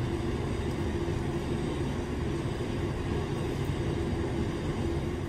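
Steady drone of shop machinery running, an even rumble with a constant hum and no hammer blows.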